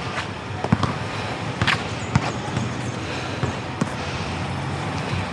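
A basketball bouncing on a concrete court: a handful of sharp, irregularly spaced thumps over steady background noise.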